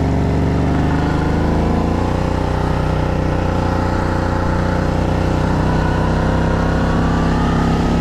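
ATV engine running under way, steady and close, its pitch creeping slowly upward from about two seconds in as it picks up speed.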